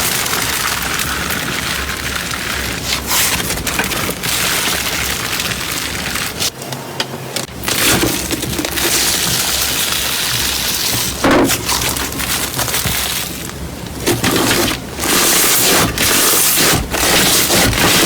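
Crunchy slime being pressed and squeezed by hand, giving dense crackling and popping with a few short pauses.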